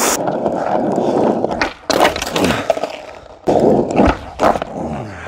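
Skateboard wheels rolling on rough asphalt, broken by sharp clacks of the board striking the ground; the loudest clack comes right at the start, with a low thump about four seconds in.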